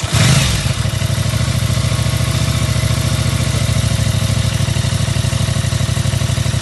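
Aprilia RS660's parallel-twin engine catching on start-up and settling into a steady, evenly pulsing idle. The owner is trying to track down a knocking noise in this engine.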